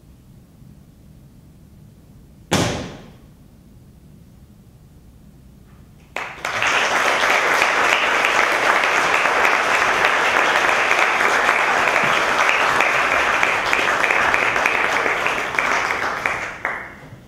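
A single sharp bang that rings out and decays within a second, then about six seconds in an audience breaks into sustained applause that fades away near the end.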